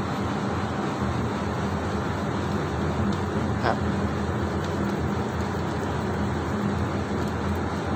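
Steady hum of a running motor with a constant rushing of air, unchanging throughout.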